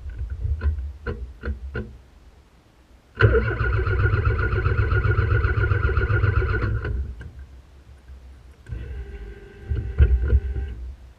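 Ford Pinto engine of a kit car running unevenly with a few sharp ticks and dying away, then starting suddenly, running for a few seconds and cutting out, and doing so again more briefly near the end: the engine keeps cutting out, in a breakdown the owner traced to a wiring fault in a soldered harness.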